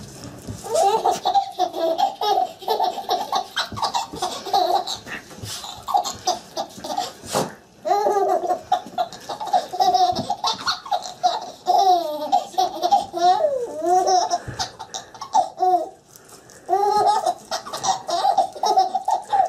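A baby laughing hard in repeated high-pitched fits, breaking off briefly a couple of times between them.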